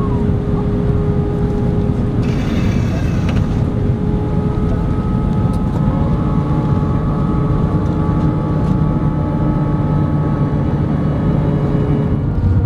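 Airbus A320 cabin noise during descent: a loud, steady rumble of jet engines and airflow over the fuselage, with several steady engine tones. A short hiss comes about two to three seconds in, and a low engine tone grows stronger around six seconds in.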